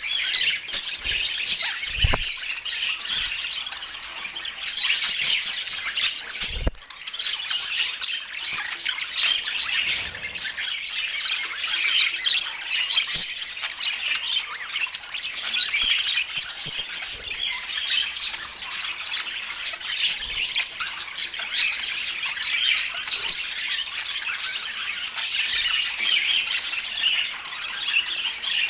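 Budgerigars chattering and squawking without a break, many short overlapping chirps and calls. A couple of brief low thumps come through about two seconds in and again near seven seconds.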